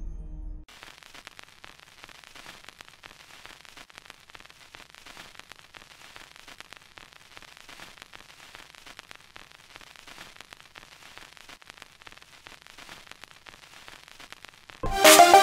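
Faint crackling static hiss. Music fades out in the first second, and a loud musical sting begins near the end.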